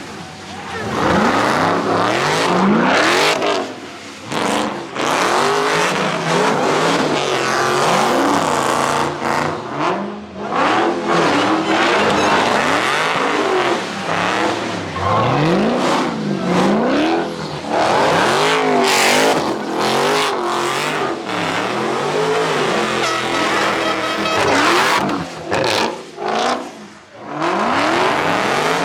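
A high-powered car engine revving hard, its pitch rising and falling again and again, with tire squeal, as a car spins donuts or does burnouts.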